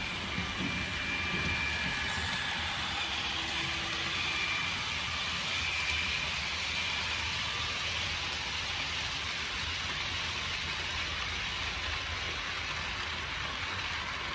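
A model Class 66 locomotive's factory-fitted DCC sound decoder plays a diesel engine running steadily through the locomotive's small speaker as it hauls a train of container wagons. Under it runs the steady hiss of the model wagons' wheels rolling on the track.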